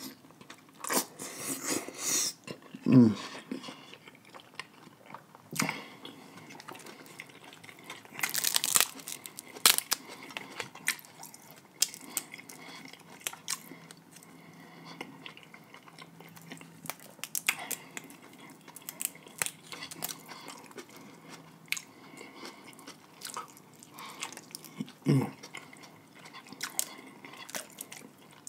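Close-up mukbang eating sounds: wet chewing and sucking of seafood, with crackling snaps as snow crab leg shells are broken apart by hand. A voice makes two short low sounds, about three seconds in and near the end.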